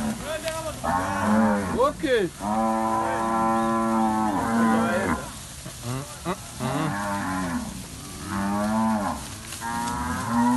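Cattle mooing again and again as the herd is driven along, calls overlapping one another, with one long moo of about three seconds in the middle.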